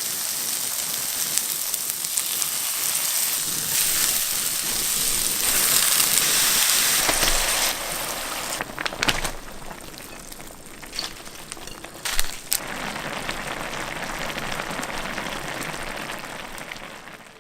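Food sizzling and crackling in hot oil in a pan, a steady frying hiss, with a few sharp knocks about nine and twelve seconds in.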